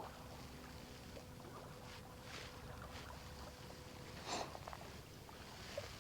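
Small waves of the Great Salt Lake lapping faintly at the shore, with a slightly louder splash about four seconds in.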